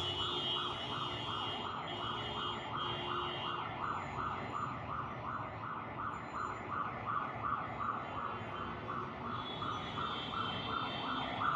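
Electronic alarm warbling, its pitch sweeping up and down about three times a second without a break.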